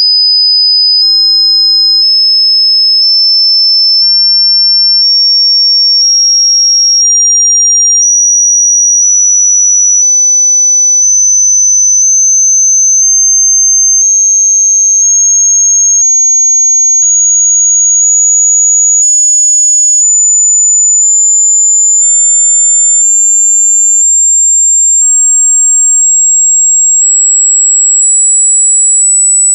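Pure sine test tone for a hearing check, stepping up in pitch by 100 Hz each second, from 5000 Hz to about 7900 Hz, with a faint click at each step.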